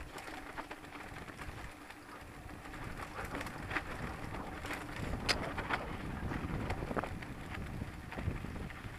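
Mountain bike rolling fast down a rocky dirt trail: tyres crunching over gravel and stones with a low rumble, broken by frequent sharp clicks and rattles of the bike over the rocks, the sharpest about five seconds in.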